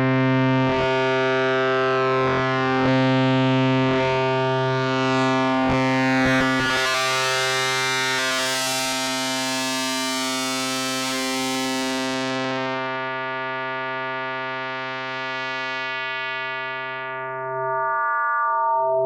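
Fancy Synthesis K-Accumulator synth oscillator module playing a sustained drone on one low steady pitch through cross-modulation (XPM/2OP) patching. A few seconds in the tone brightens into a dense wash of high overtones, then the upper overtones fade and it grows purer and quieter toward the end as the module transitions to its FMNT mode.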